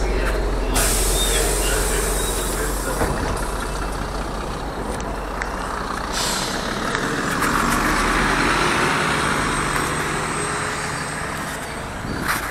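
MAZ diesel city bus running close by, with sharp bursts of compressed-air hiss from its pneumatics about a second in and again briefly around six seconds. From about seven seconds the bus's noise swells as it pulls away, and its steady engine hum fades out near ten seconds.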